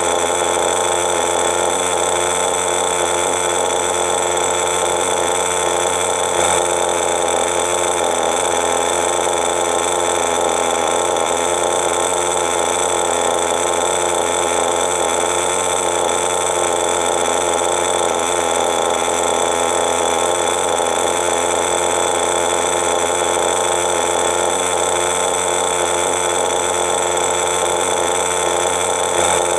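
Veco .21 two-stroke glow engine of a model RC buggy running steadily at an even speed, its note holding one pitch without revving.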